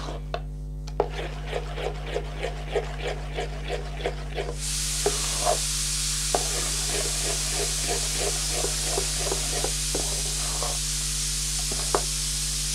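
A spoon stirring thick dhuska batter of ground rice and dal in an aluminium pot, in soft regular strokes about two to three a second. About four and a half seconds in, a steady hiss sets in and carries on under occasional clicks of the spoon against the pot.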